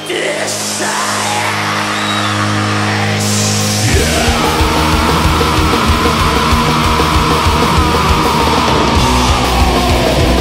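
Heavy metal music: held chords for about four seconds, then the full band comes in with fast, dense drumming under a long held high note.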